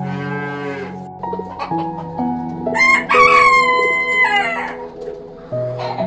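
A rooster crows once, about three seconds in: a long, loud call that drops in pitch at the end. Before it a cow moos briefly, and background music plays throughout.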